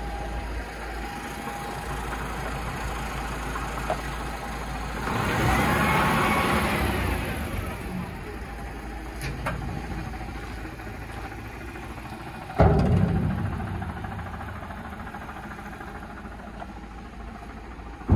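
Diesel engine of a DAF CF530 tipper truck idling steadily. It swells louder for a couple of seconds about five seconds in. A sudden loud thump comes near the two-thirds mark, and another at the very end.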